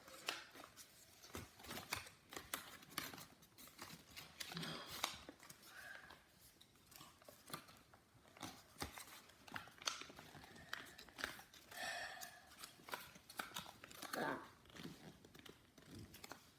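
A sheet of printer paper being folded and creased by hand: faint, irregular crinkles and rustles with small sharp clicks as the folds are pressed flat.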